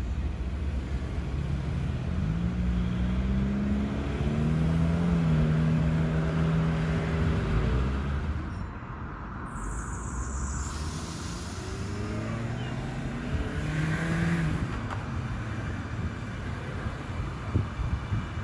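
Sydney Trains M-set Millennium electric train moving off, its traction motors whining and rising in pitch in steps, over a low rumble. The whine dies away about eight seconds in and rises again a few seconds later.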